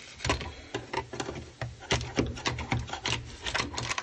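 A hand scraper chipping and scraping at sound-deadening mat frozen brittle with dry ice on a car's steel floor pan: a run of irregular sharp knocks and scrapes as the deadening cracks loose.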